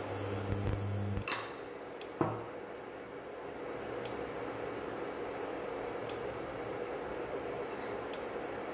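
Metal spoon clinking sharply twice against the dish, about a second and two seconds in, as stuffing is spooned onto a roti, then quieter spreading over a steady room hum.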